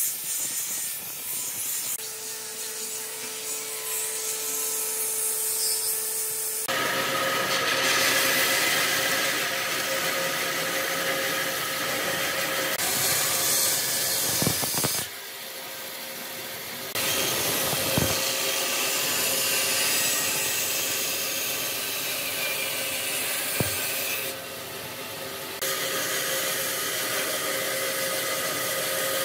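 Angle grinder with a sanding disc buzzing against a wooden plank for the first several seconds. Then a bandsaw runs and saws through a thick hardwood plank, the cutting noise loud and dense, broken off and resumed a few times.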